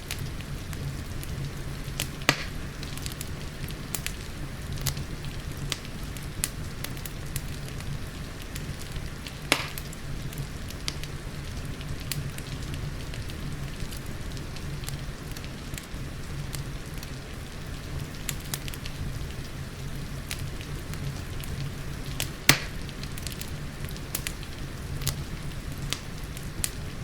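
Wood fire crackling in a fireplace: a steady stream of small crackles and snaps over a low, even rumble, with three louder pops spread through.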